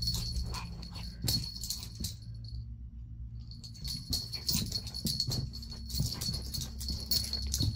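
Metal tags on a chihuahua puppy's collar jingling and rattling in quick clusters as the puppy scrambles about playing with a tennis ball. The jingling stops for about a second and a half a little after two seconds in, then starts again, over a steady low hum.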